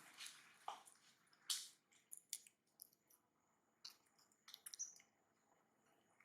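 Near silence broken by a few faint, scattered clicks and short rustles, the sharpest about a second and a half in.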